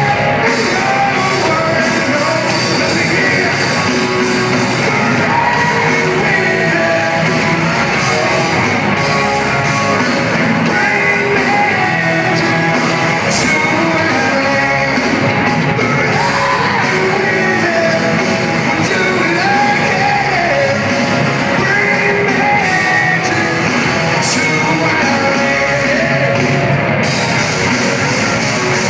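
Hard rock band playing live: a sung lead vocal over electric guitars and drums, recorded from among the crowd in an arena, with the hall's echo.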